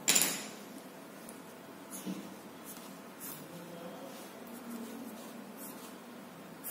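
Coloured pencil scratching on paper in faint, short sketching strokes. A single sharp knock or rustle comes right at the start.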